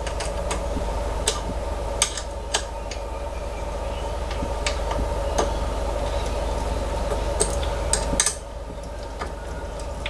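Scattered sharp clicks and clinks of small metal and plastic parts being handled while a steel-tube filament spool holder is fitted to a 3D printer, over a steady background hum that drops a little about eight seconds in.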